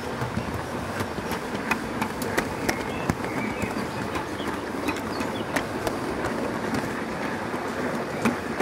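Gauge 1 live-steam model train running on garden track: a steady rushing hiss with sharp, irregular clicks scattered through it.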